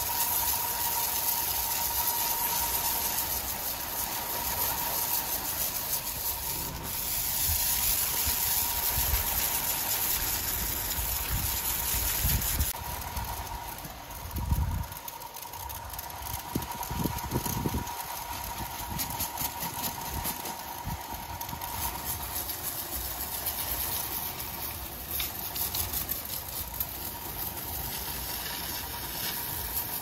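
Sawmill machinery running: a steady hiss with a constant high whine, the sound shifting about thirteen seconds in, with a few low thumps around the middle.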